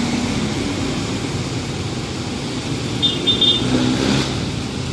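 Street traffic on a wet road: jeepneys and other vehicles pass close by with engines running and a steady hiss. About three seconds in comes a short, high-pitched double beep.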